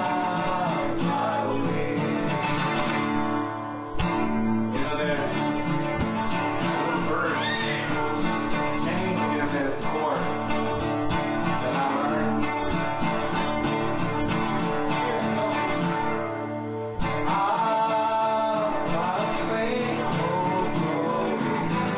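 Country-style song with acoustic guitar and a singing voice.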